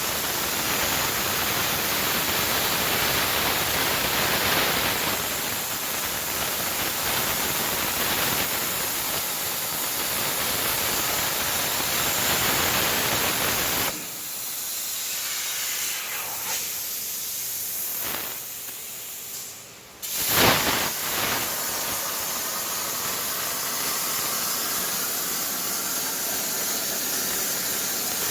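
Hypertherm 105 air plasma torch on a CNC cutting table, a steady loud hiss. About halfway through it turns to a thinner hiss, then almost stops for a moment before starting again with a sharp burst and hissing on.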